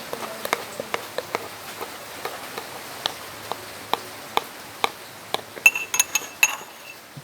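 Metal spoon clinking against glass: a run of light ticks about twice a second, then several louder, ringing taps about five and a half seconds in.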